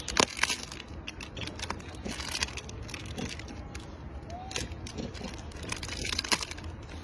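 Plastic snack wrapper crinkling and crackling in irregular bursts as a macaque handles it in its hands.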